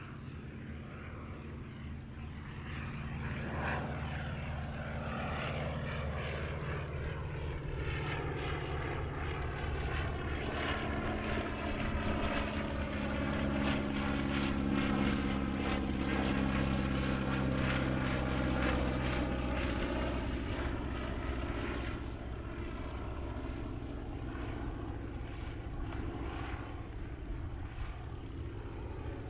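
Focke-Wulf Fw 44 J Stieglitz biplane's Siemens Sh 14 seven-cylinder radial engine and propeller in flight. The engine noise swells to its loudest around the middle as the plane passes, then eases off.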